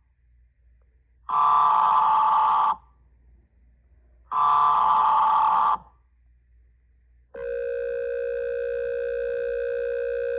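Emergency Alert System header tones: two harsh digital data bursts about a second and a half long, spaced about a second and a half apart. About seven seconds in, a steady attention tone starts and holds.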